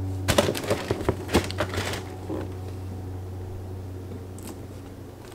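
A sneaker and its cardboard shoebox being handled: several light knocks and rustles in the first two seconds, then a steady low hum.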